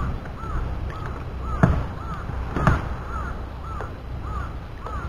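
Short, repeated arched bird calls, roughly two a second, over a low wash of wind and water. Two sharp knocks, about one and a half and two and a half seconds in, are the loudest sounds.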